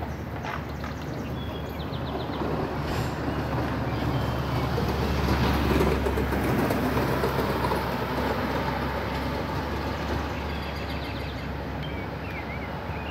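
A passing road vehicle: a low rumble and rush of noise that swells to its loudest about six seconds in, then slowly fades.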